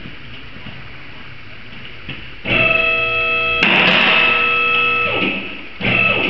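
Low background hum and hiss, then guitar-driven music comes in loudly about two and a half seconds in and keeps playing with sustained chords.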